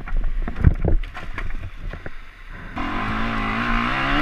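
Off-road trail motorcycle: a few knocks and scrapes as the bike is handled among branches, then about three seconds in the engine comes in suddenly and runs at steady revs.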